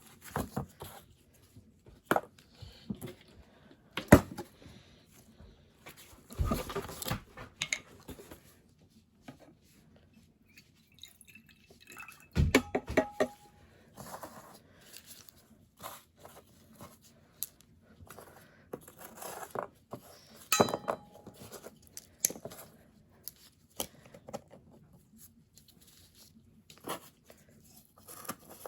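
Metal parts and tools being handled during work on a mechanical railroad crossing bell: irregular clinks and knocks, a few with a short metallic ring.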